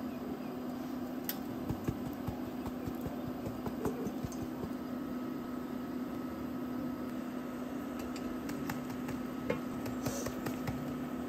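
A steady low hum of a running machine, with a few light clicks of metal tongs as potato chips are set on food, and a brief sprinkle from a shaker near the end.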